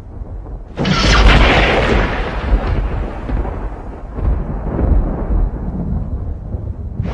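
Thunder: a sudden sharp thunderclap about a second in that rolls on into a long, slowly fading rumble with a few smaller swells, and a second clap breaking right at the end.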